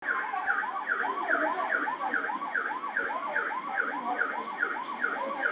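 Electronic siren sound effect: a rapid, repeating wail-and-whoop cycle about twice a second, with a second overlapping siren pattern sweeping at a slightly different rate.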